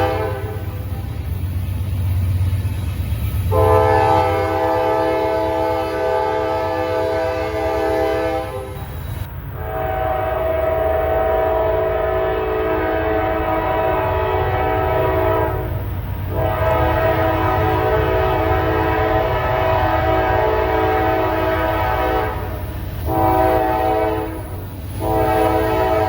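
Diesel locomotive's multi-chime air horn sounding a chord in long blasts of several seconds each, then a short blast and another long one, the long-long-short-long grade crossing signal, over the low rumble of the train.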